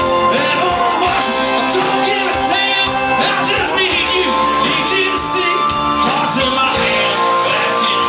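Live rock band playing loudly: electric guitars, bass, drums and keyboards.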